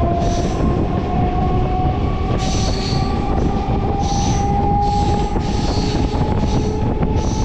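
MEMU electric passenger train running along the track, heard from on board: a loud, steady rumble with a whine that rises slowly in pitch.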